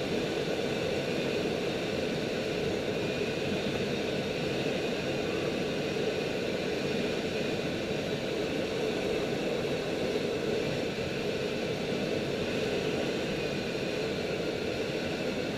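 Steady rush of air over the canopy and fuselage of a 304S Shark sailplane in gliding flight, heard inside the cockpit.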